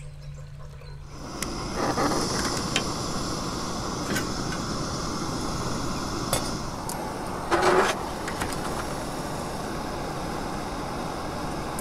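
Small canister camp stove burner hissing steadily, coming on about a second in, with a few light clinks of the metal pot and lid and a short louder knock a little past the middle.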